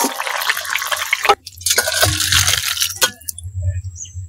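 Water splashing and running in two spells as a metal wok is rinsed and scrubbed, with a few sharp metallic clinks.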